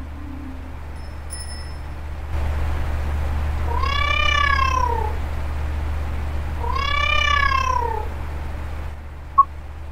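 A cat meowing twice into a running electric fan, each meow long, rising then falling in pitch, over the fan's steady whir that starts about two seconds in. A short sharp blip comes near the end.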